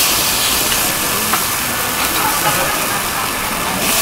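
Vegetable jeon batter sizzling on a hot oiled griddle as ladlefuls are poured on, a steady bright hiss that eases slightly near the end.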